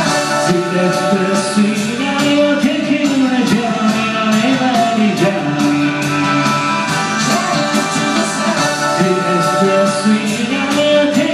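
Rock song with a voice singing over band backing: a sung cover of a Japanese rock song.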